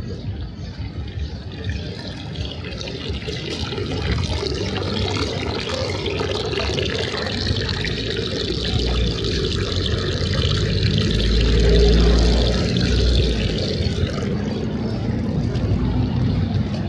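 Rushing water, growing louder over several seconds, with a low rumble about twelve seconds in.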